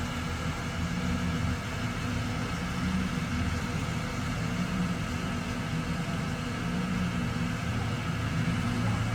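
A large engine running steadily at idle, a deep hum that swells and eases slightly.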